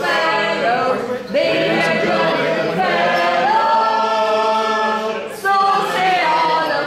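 Voices singing a song in long held notes, with short breaks between phrases.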